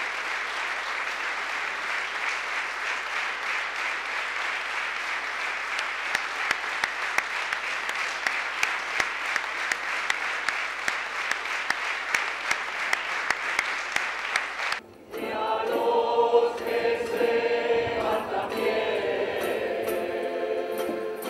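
Steady applause from a large gathering, cut off abruptly about two-thirds of the way through. Then a crowd sings a song together.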